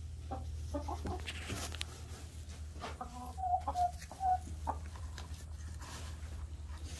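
Domestic hens clucking at close range: a run of short calls, loudest about three to four seconds in, with a few light clicks among them over a steady low hum.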